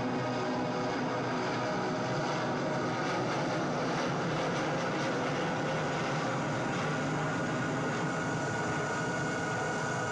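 Jet engine noise played over a hall's loudspeakers: a steady rush with a high turbine whine that grows stronger in the second half.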